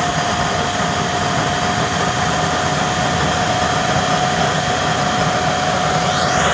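Electric blower running steadily and forcing air into a homemade waste-oil burner with a 24-hole nozzle, burning a motor oil and gasoline mix with a blue flame: a constant rush with a steady whine.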